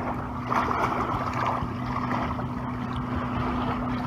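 A steady low motor hum under rushing wind and water noise.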